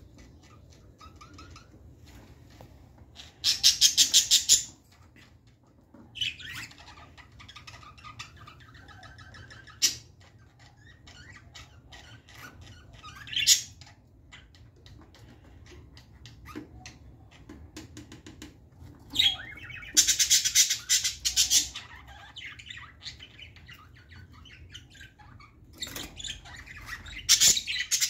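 Budgerigars chattering in a cage, with three loud bursts of rapid harsh squawking: about three seconds in, around twenty seconds in, and near the end, and softer chirps in between.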